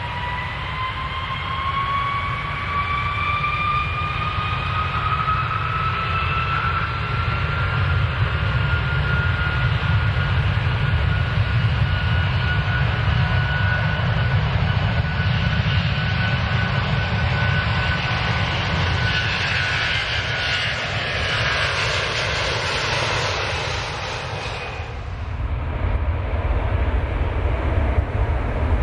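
Airplane taking off: the engines spool up with a rising whine over the first several seconds, then hold steady at takeoff power over a deep rumble. A rushing hiss builds and cuts off sharply about 25 seconds in.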